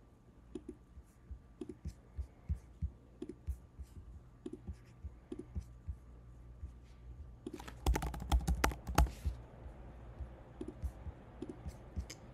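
Computer keyboard typing and mouse clicks: scattered key presses and clicks, with a quick run of louder key presses about eight seconds in.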